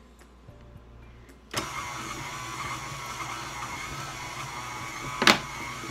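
KitchenAid Artisan stand mixer switched on about a second and a half in. Its motor runs steadily at the lowest (stir) speed, turning a dough hook through bread dough in the steel bowl. A single sharp knock comes just before the end and is the loudest sound.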